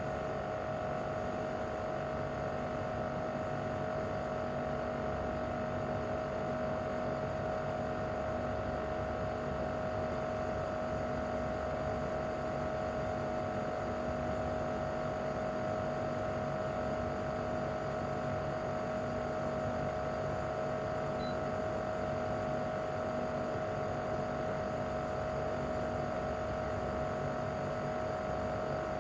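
Mitsubishi Heavy Industries SRC2221T air-conditioner outdoor unit, with its inverter-driven single rotary compressor, running steadily in cooling mode: a constant hum with a steady mid-pitched tone and low rumble.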